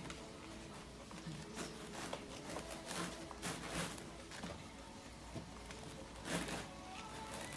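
A small dog circling a cone inside a soft fabric-walled ring: irregular scuffs of its paws on the pad underfoot and rustles as its body brushes the walls, with one louder brush near the end.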